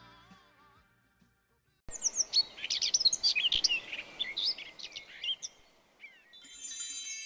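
Songbirds chirping and twittering in quick, overlapping calls for about four seconds over a faint hiss. This comes after the tail of a soul song fades out into silence. Near the end, steady bell-like ringing tones begin.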